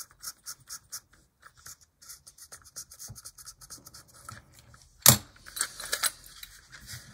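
Quick scratching strokes of a pen-like tool scrubbing the metal wheels of an upside-down HO-scale Tyco ALCO C430 locomotive, about four strokes a second at first and then more irregular. About five seconds in comes a sharp knock and handling clatter as the locomotive is turned over.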